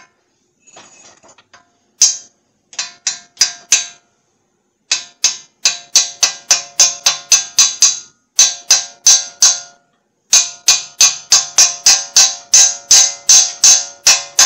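Hammer tapping a steel bearing race used as a driver, seating a new front wheel bearing into the steering knuckle: many light, sharp metallic taps with a short ring, a few single ones at first, then steady runs of about three to four a second broken by short pauses.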